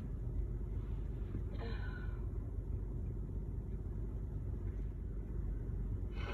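A steady low rumble, with one short breathy sound, like an intake of breath, about one and a half seconds in.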